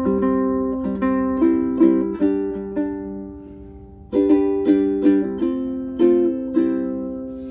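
aNueNue Green Bird ukulele with low-G strings being fingerpicked: a run of plucked notes that rings down about three seconds in, then a new phrase starts about a second later and rings out near the end.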